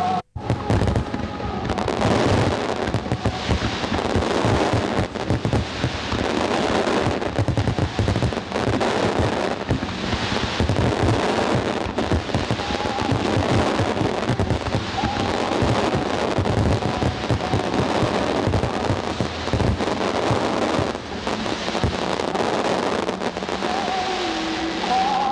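Fireworks display: aerial shells bursting in quick succession, a dense, continuous crackling of many small reports.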